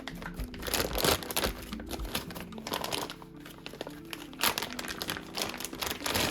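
Plastic wrapping crinkling and rustling as it is handled, in irregular bursts, loudest about a second in and again about four and a half seconds in.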